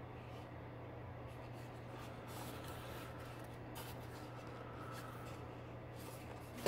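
Faint rubbing and a few light knocks as a Ninja Turtle statue is handled and set down, over a steady low hum.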